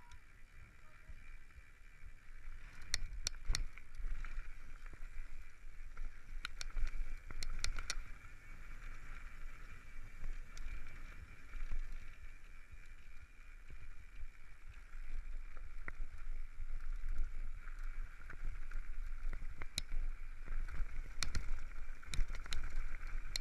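Mountain bike rolling fast down a rough gravel track, heard from the rider's own camera: a low rumble of wind and tyres on loose stones, with a steady high buzz throughout. Sharp clattering clicks as the bike rattles over rocks, bunched about three and seven seconds in and again near the end.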